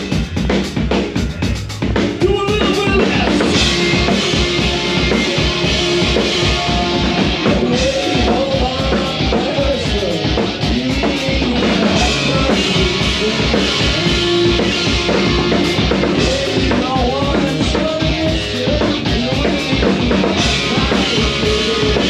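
Punk rock band playing live, instrumental with no vocals: drums lead off, and electric guitars and bass come in about two seconds in and play on together over a steady driving beat.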